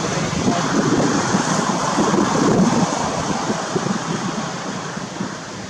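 Wind buffeting the microphone: a steady, gusty rush of noise that fades over the last two seconds.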